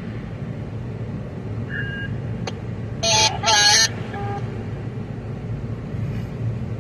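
Steady low engine hum of a truck, heard from inside its cab. It is broken by a short electronic beep and then, about three seconds in, a brief burst of garbled two-way radio voice.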